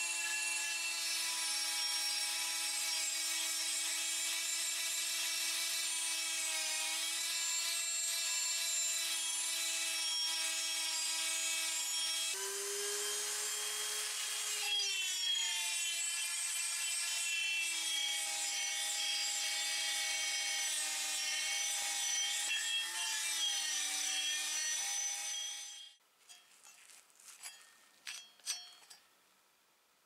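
Handheld rotary tool spinning a felt polishing wheel against the inside of a moka pot's lower chamber: a steady high motor whine whose pitch sags slightly as the wheel bears on the metal and jumps higher for a few seconds about halfway through. It stops a few seconds before the end, leaving a few faint handling clicks.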